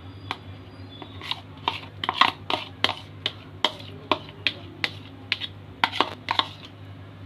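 A string of short, sharp taps, two to three a second and irregular: a red container knocked against itself and the pot to shake thick yogurt out onto chicken in a steel pot. A low steady hum runs underneath.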